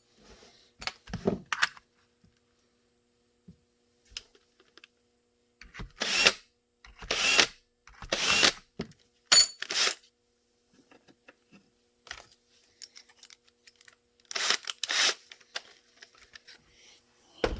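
A series of short scratchy strokes and handling noises on a kydex holster, coming in clusters of a few at a time with quiet gaps between. This fits marking hole spots on the kydex.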